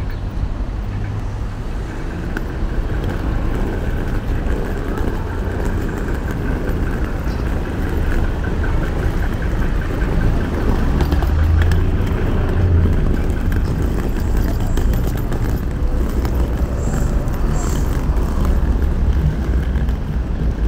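City street ambience: road traffic running with a steady low rumble, growing a little louder about halfway through.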